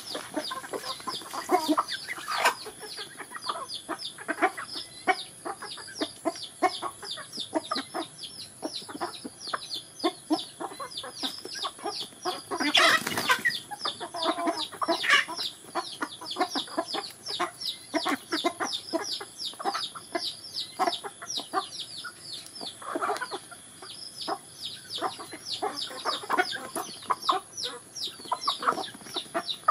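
A flock of chickens feeding: a dense, continuous chatter of quick, high falling peeps mixed with lower clucks. A louder, fuller burst rises out of it about 13 seconds in.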